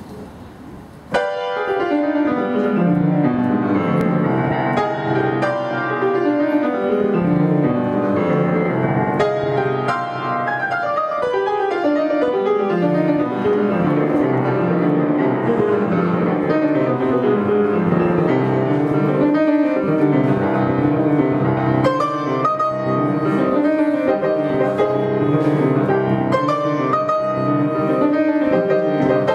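Grand piano played solo, starting with a loud attack about a second in and going on in flowing runs of notes that rise and fall.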